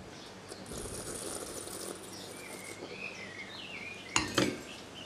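Red wine slurped from a glass, sucked in with air as a hissing draw to aerate it on the palate. A bird chirps, and about four seconds in the glass is set down on the table with two quick clinks.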